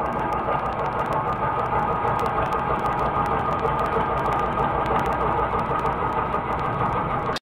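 Grizzly G0766 wood lathe running while a gouge cuts into the spinning wood blank: a steady cutting hiss over the motor's hum, with fine scattered ticks. The sound cuts off abruptly near the end.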